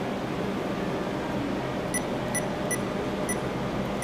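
Four short electronic beeps from checkout equipment, about a third to half a second apart in the second half, over a steady air-conditioning-like hum.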